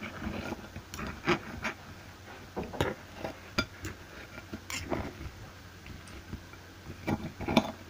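Knife and fork cutting through pancakes, clinking and scraping against the plate in irregular clicks, the loudest near the end.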